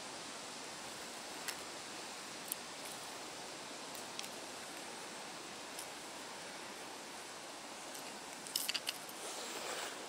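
Small metallic clicks and jingles of a jointed pike swimbait's hooks, rings and body sections knocking together as it is turned in the hand: a few single clicks, then a quick cluster of clicks with some rustling near the end, over a steady outdoor hiss.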